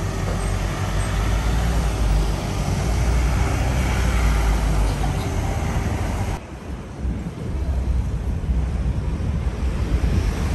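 City street traffic noise: a steady low rumble of buses and cars going by, with wind buffeting the microphone. The sound changes abruptly about six seconds in, with less hiss and a brief dip in loudness.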